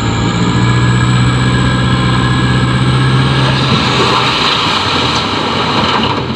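Light dump truck's diesel engine running steadily with a deep, even hum while its hydraulic hoist tips the loaded bed up. About three and a half seconds in, the hum gives way to a rougher, hissing noise.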